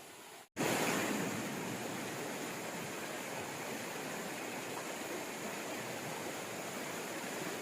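River rapids rushing over rocks, a steady, even noise of flowing water that cuts in abruptly about half a second in.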